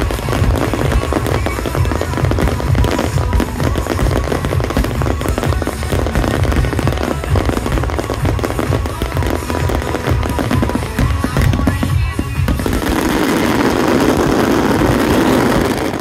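Fireworks going off in a dense, continuous barrage of rapid bangs and crackles. About twelve seconds in, the separate bangs give way to a steadier, denser rushing crackle.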